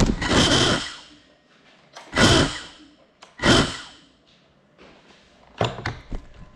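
Crashed 6S FPV quad's motors and propellers spinning up in three short bursts, each lasting under a second, then a few sharp knocks near the end.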